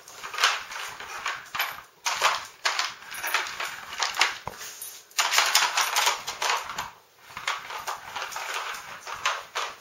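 Plastic layers of a Nina Ottosson Dog Tornado treat puzzle clattering and scraping against each other and the tile floor in irregular bursts as a dog noses and pushes them round to get at the treats.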